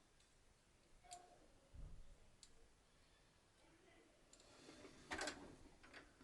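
Near silence with a few faint clicks and taps, the loudest cluster about five seconds in: small parts of a Singer sewing machine's bobbin area being handled.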